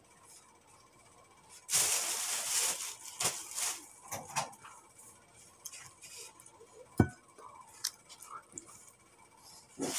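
Close eating and handling noises from a person eating a peeled banana without hands: a hissing burst about a second long near the start, then scattered clicks and small rustles, and a sharp knock about seven seconds in.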